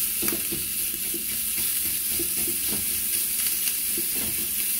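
Chopped bacon sizzling in a frying pan as a plastic spoon stirs and turns it, with scattered short scrapes and taps of the spoon against the pan.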